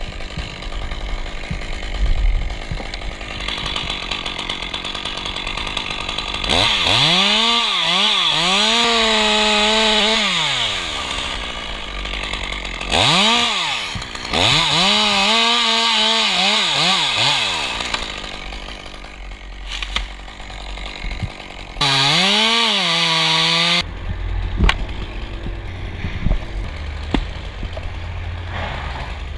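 Chainsaw idling, then revved to full throttle three times while cutting beech wood, the last burst short. In each burst the engine note bends down and back up as the chain loads in the cut.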